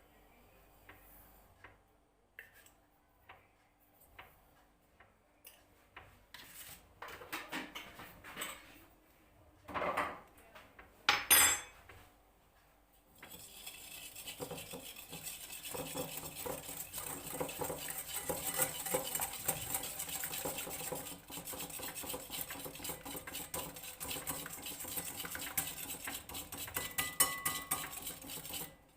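Kitchen utensils and dishes clinking, with two sharp clinks about ten and eleven seconds in, then about fifteen seconds of fast, steady whisking in a bowl, a rapid run of clicks against the bowl that stops just before the end.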